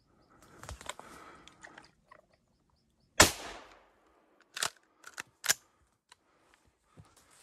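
Rustling of brush and twigs, then about three seconds in a single loud shotgun shot with a short fading tail, followed by a few sharp clicks.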